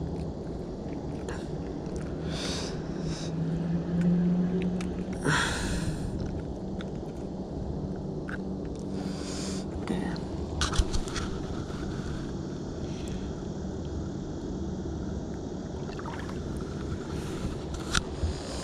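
Outdoor ambience on a fishing kayak: a steady low rumble, with a low hum that swells about four seconds in, and scattered scrapes and clicks.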